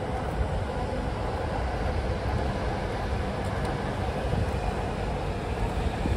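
City street ambience: a steady rumble of road traffic passing on the road beside the pavement.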